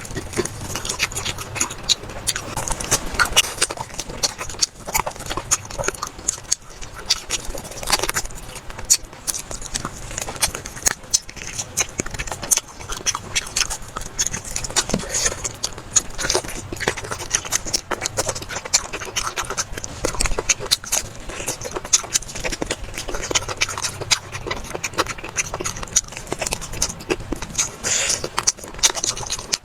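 Close-miked eating sounds: a person chewing and biting food from a bowl, with a steady stream of small wet clicks and occasional utensil scrapes.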